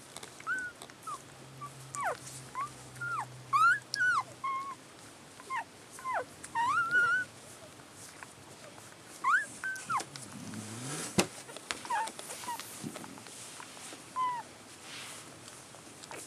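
Newborn rough collie puppies, only hours old, squeaking and whimpering: many short high calls that swoop up and down, often several in quick succession, thinning out in the last few seconds. A single sharp click about 11 seconds in.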